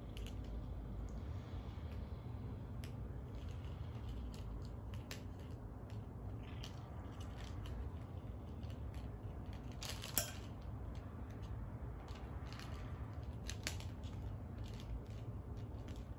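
Cat wrestling with a plastic lattice ball toy: irregular sharp plastic clicks and taps, the loudest about ten seconds in.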